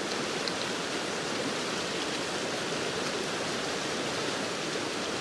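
River rapids rushing steadily, an even wash of water noise.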